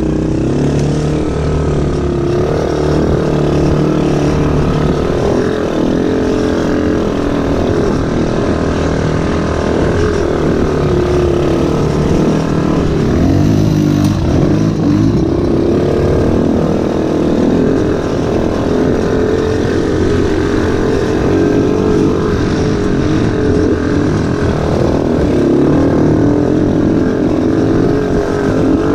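Small ATV engines running through off-road riding, the engine note rising and falling over and over as the throttle is opened and eased off.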